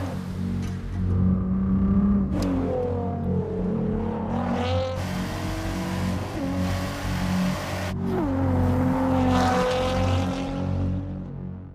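Polaris Sportsman 800 V-twin ATV engine running under throttle, its pitch repeatedly rising as it revs and falling as it eases off. The sound breaks off briefly about 8 seconds in, then revs up again.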